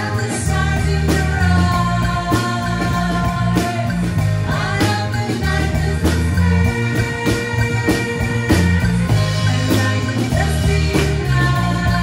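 Live synth-pop/new-wave band playing: a woman singing over an electric bass line, a drum kit keeping a steady beat, and accordion.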